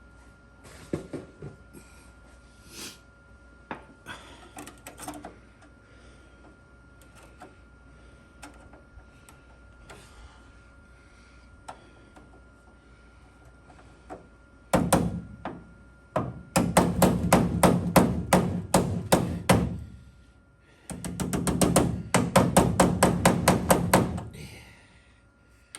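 Sheet-metal bodywork: scattered light knocks and clatter, then two runs of rapid hammer strikes on metal in the second half.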